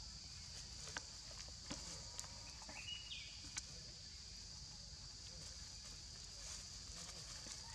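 Dry leaf litter crackling and rustling in scattered short clicks as monkeys scuffle on it, over a steady high insect drone. A brief high squeak sounds about three seconds in.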